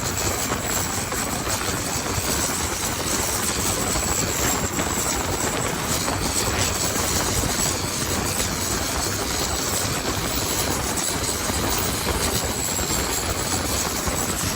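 Engine of a Thai longtail racing boat running hard on a drag run, a loud, steady, dense noise that does not let up.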